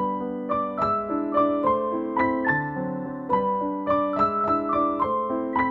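Background piano music: a light melody of evenly paced notes over sustained chords.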